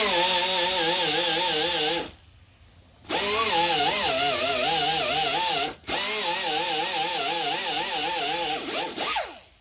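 Power grinder grinding paint off a car body panel down to bare metal, its motor pitch wavering as it bears on the panel. It runs three times, stopping for about a second after the first run and dipping briefly near the middle.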